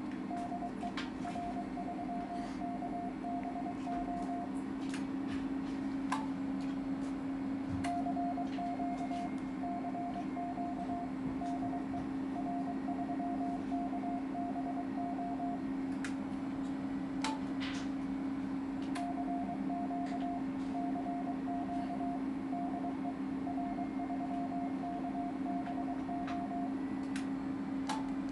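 Morse code (CW) sidetone: a single mid-pitched beep keyed in dots and dashes, in three runs of several seconds with pauses between. It sounds over a steady low hum, with a few sharp clicks here and there.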